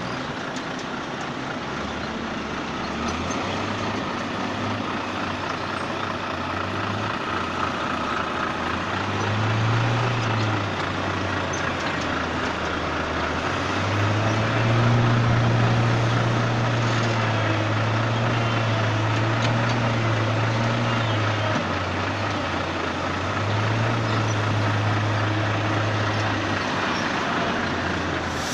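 Heavy diesel machinery running during wood-chip loading, over a steady rushing noise. Its engine note rises and holds for a few seconds at a time, three times: briefly near ten seconds in, for about seven seconds from the middle on, and again a few seconds later. A sharp click sounds at the very end.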